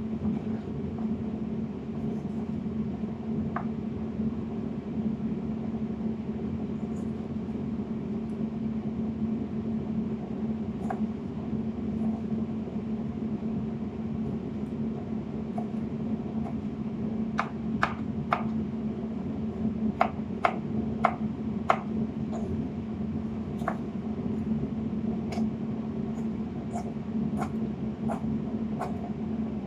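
Kitchen knife chopping tomatoes on a wooden cutting board: sharp taps of the blade on the board, a few scattered at first, then coming about one or two a second in the second half. Under them runs a steady low hum.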